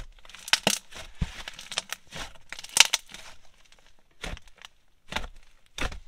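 Thick blue clay slime being squeezed, folded and poked by hand, giving irregular sticky pops and crackles as trapped air bubbles burst.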